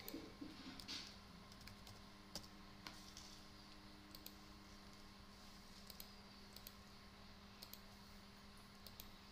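Faint, scattered clicks of a computer mouse and keyboard as a web form is filled in, over a low steady hum.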